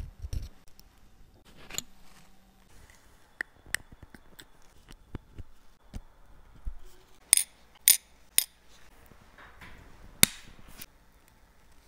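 Small metal clicks, ticks and clinks of watchmaker's tools on the tiny parts of a Rolex watch movement being taken apart, with a quick run of three louder clicks past the middle and one more near the end.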